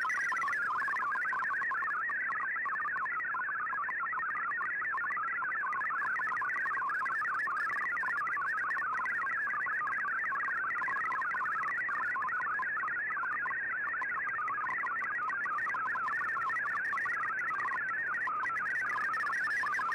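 MFSK digital data signal from a shortwave broadcast, heard through a communications receiver: a steady stream of rapidly warbling, hopping tones over faint static.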